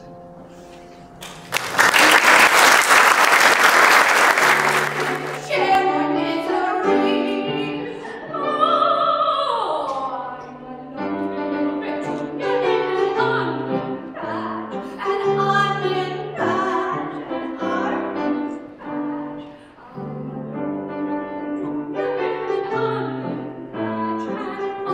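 Audience applause for about four seconds, starting a second and a half in. Then a woman sings with grand piano accompaniment, her voice sliding down in pitch on one phrase.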